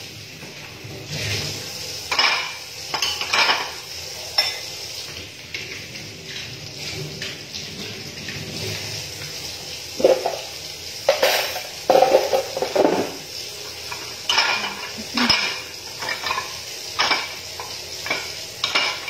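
Dishes and cutlery being washed by hand in a stainless steel sink: irregular clinks and knocks of crockery and utensils, with a louder run of clattering about ten seconds in.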